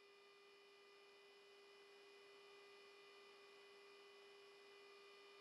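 Near silence with a faint steady electronic hum of a few thin, unchanging tones.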